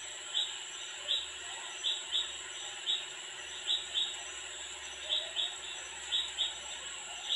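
Repeated short high chirps, often two in quick succession, coming about once a second. They sound over a steady hum and a faint high whine.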